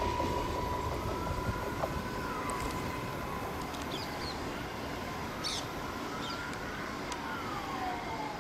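An electric multiple unit (EMU) suburban train fading into the distance, its steady whine dying away, with faint tones gliding up and down. A few short bird chirps come about four and five and a half seconds in.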